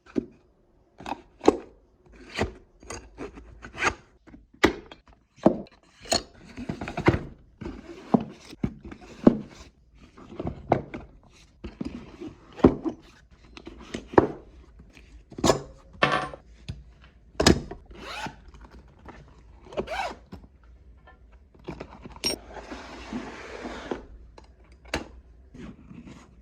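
Hand tools clunking and knocking one after another as they are handled and set into a tool bag, in an irregular run of sharp knocks. Twice there is a longer scraping rustle.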